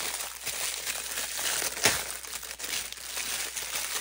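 Thin clear plastic wrapping crinkling and crackling as hands pull it off a silicone mold, in an irregular run of crackles with the sharpest one about two seconds in.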